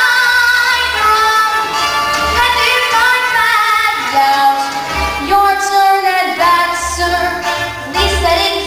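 A young girl singing a Broadway show tune solo into a handheld microphone over instrumental accompaniment, with long held notes carrying vibrato.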